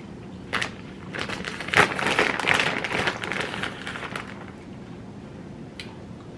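Crinkling and rustling of something being handled, from about a second in until about four and a half seconds, with a sharp click shortly before it starts.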